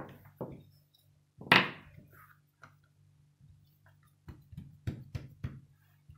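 Thin wooden rolling pin working a ball of dough flat on a pastry mat with soft thumps, then put down with a loud knock about a second and a half in. Near the end, about four soft slaps as the dough sheet is lifted and laid flat on the mat by hand.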